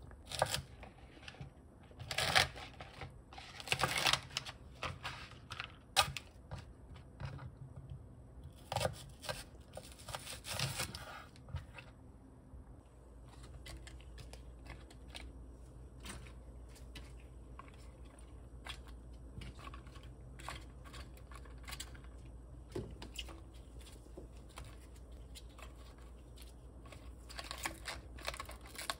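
Kitchen handling sounds: several sharp knocks and taps in the first dozen seconds, then soft rustling, crinkling and light taps as sliced onion, cabbage leaves, apple wedges and green onion are laid into an enamelled cast-iron pot, over a low steady hum.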